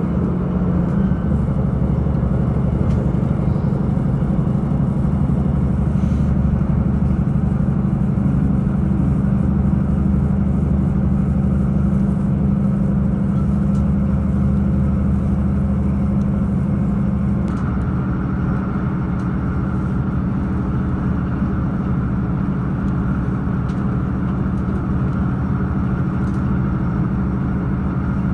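Diesel train running along the line, a steady engine hum with rumbling running noise; about two-thirds of the way in the engine note shifts to a different pitch.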